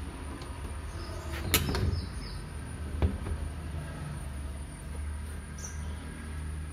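Portable toilet cabin door being swung shut, with a sharp knock about a second and a half in and a smaller one about three seconds in, over a steady low hum.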